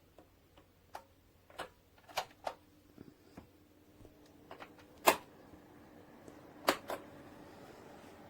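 A dozen or so sharp clicks and taps at uneven intervals, two louder ones about five and seven seconds in, with a faint steady hum coming in about two and a half seconds in.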